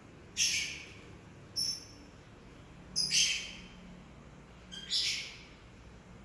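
A bird chirping in four short, high calls about a second or two apart.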